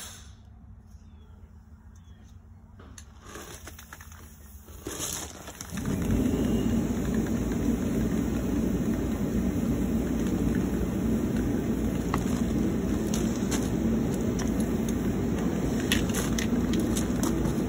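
A large blower fan switches on about six seconds in and then runs steadily, loud and low-pitched, with a few faint clicks before it starts.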